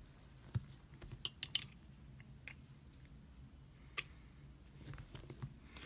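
Small metal parts of a Spyderco Polestar pocketknife clicking and clinking against each other as the knife is fitted back together by hand. There are a handful of sharp clicks, the loudest a quick cluster of three about a second and a half in.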